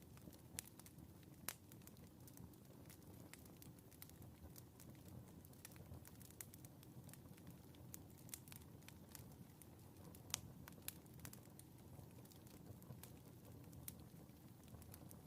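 Wood fire in a fireplace crackling faintly, with irregular sharp pops and ticks over a low steady rumble; the loudest pop comes about ten seconds in.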